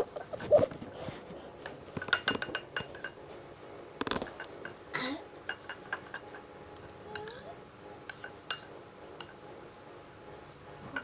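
Irregular clinks and taps of a utensil against a bowl as a stiffened slime mixture of shampoo, UHU glue and dish soap is worked.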